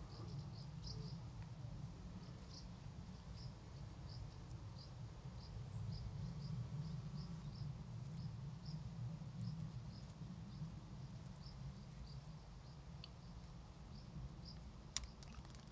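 An insect calling: a short high chirp repeated steadily, about three every two seconds, over a low steady rumble. A single sharp click sounds near the end.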